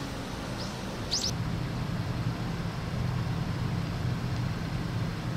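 Street ambience: two short bird chirps about a second in, then a steady low hum of idling vehicle engines.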